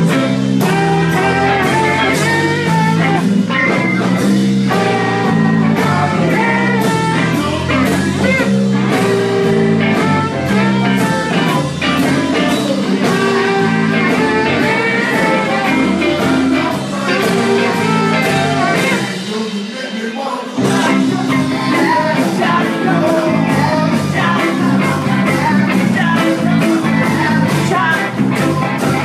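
A live rock-and-roll band playing with singing. About two-thirds of the way through, the bass drops away for about a second, then the full band comes back in.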